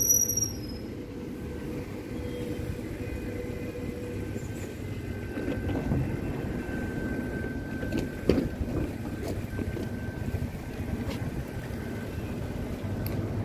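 Electric suburban train standing at a platform with its doors open: a steady low hum of its on-board equipment, a short high beep at the very start, a thin steady tone through the middle, and a few sharp knocks about six to eight seconds in.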